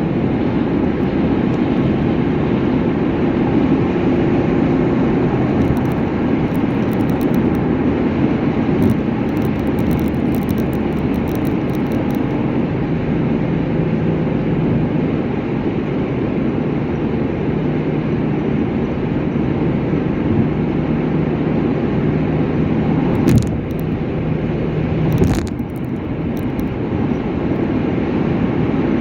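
Car driving at highway speed with steady road and engine noise; a faint low hum joins about halfway through. Two brief thumps come about two seconds apart near the end.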